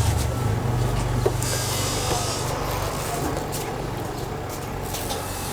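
Colors 7.5 kg semi-automatic top-loading washing machine's wash motor running as the wash cycle starts, a steady low hum with water churning in the tub. The hum eases off about halfway through.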